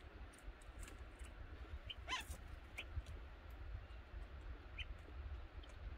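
Bulbuls give a few short, faint chirps while feeding, the clearest about two seconds in.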